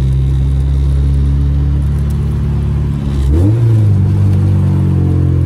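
Honda F20B four-cylinder engine heard from inside the cabin of a 1994 Civic coupe while driving: a steady drone whose pitch rises quickly about three seconds in and then holds at the higher note.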